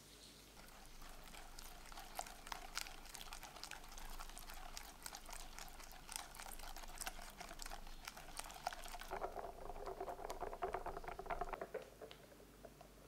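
Wire whisk beating egg yolks and sugar in a glass bowl: rapid, irregular clicking and scraping of the wires against the glass, with wet sloshing of the yolk mixture. About nine seconds in the strokes turn denser and lower.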